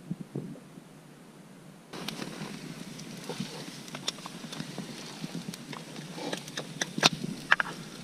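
Dry macaroni poured from a metal bowl into a cast-iron kazan of fried meat: a steady hiss with many small clicks and ticks as the pasta lands. The pouring starts about two seconds in, and there are two sharper clacks near the end.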